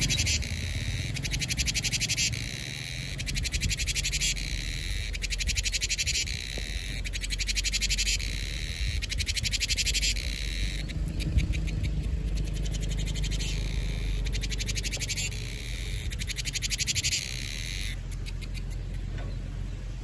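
Cicadas singing: a pulsing, rasping buzz in repeated phrases of one to two seconds that start and stop, over a steady low rumble.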